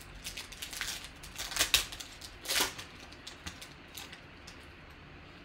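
Foil wrapper of a Panini Contenders basketball card pack being torn open and crinkled: a string of sharp crackles over the first three seconds, loudest about two seconds in, then a few faint rustles as the cards are slid out.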